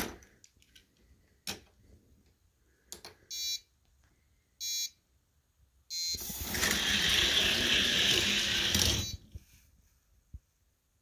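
An electronic starting gate for die-cast drag racing clicks as it is set, then sounds three short beeps over about three seconds; on the last beep the gate drops and two 1:64 die-cast cars roll down the track, a loud steady rolling rumble for about three seconds that stops suddenly.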